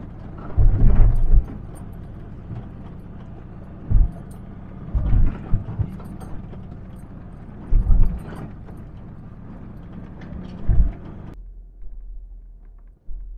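2015 Ford Ranger 2.2 L turbo-diesel pickup driving a rough dirt track: a steady drone broken by loud thuds and rattles, five times, as the truck jolts over bumps. About eleven seconds in it cuts abruptly to a much quieter low rumble with a few light knocks.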